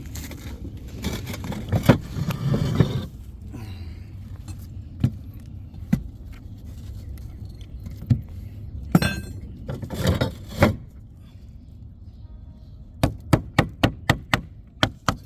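Hammer striking and chipping at the hardened mortar bed holding roof valley tiles, with scattered knocks and scraping as pieces of tile and mortar are worked loose. Near the end a quick run of sharp strikes, about four a second.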